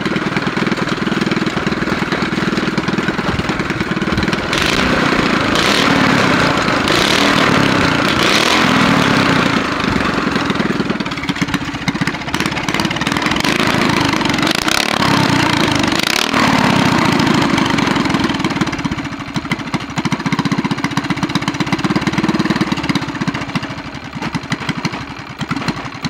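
Honda GX200-clone single-cylinder four-stroke engine, built with a GX160 head, rod and flywheel, running through a short open exhaust pipe. It runs steadily with several short louder bursts, then tapers off and falters near the end.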